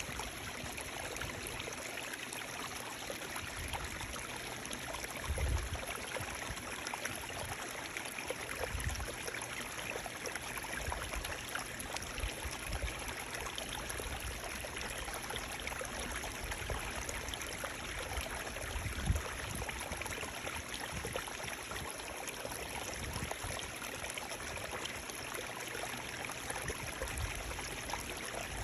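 Running water flowing steadily, an even rush with a light trickle. A couple of brief, dull low bumps come through, about five seconds in and again about two-thirds of the way through.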